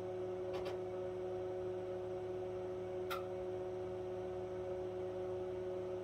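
Tektronix TDS oscilloscope powered up with its cover off and partway through booting: a steady hum with several held tones from its cooling fan and power supply. Two faint ticks come about half a second and three seconds in.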